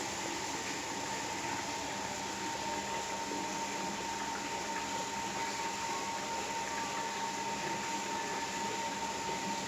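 Steady machine hum and whir, such as a fan or cooling unit, with a faint thin whine held at one pitch throughout.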